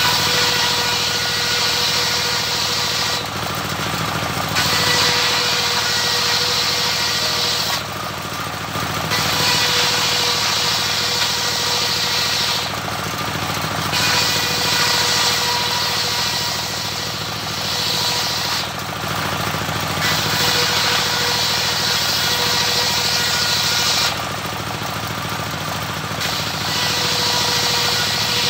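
A homemade circular saw bench driven by a stationary single-cylinder diesel engine ripping waru wood into rafters: the engine runs steadily while the blade cuts in long passes of several seconds each. The high cutting noise drops away for a second or two between passes, about five times.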